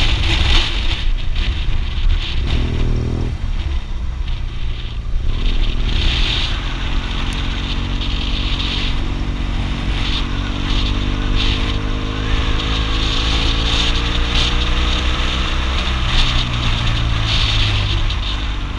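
BMW R 1200 GS Adventure's boxer-twin engine running under way, its pitch rising slowly through the middle as the bike gathers speed, with wind noise on the microphone.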